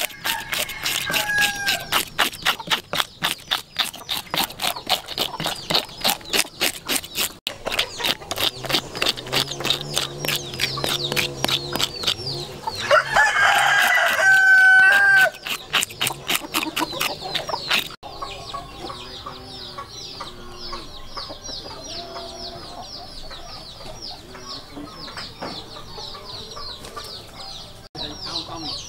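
A fish being scaled in rapid scraping strokes, about four a second, which stop about two-thirds of the way in. Near the middle a rooster crows loudly once, and chickens cluck softly throughout.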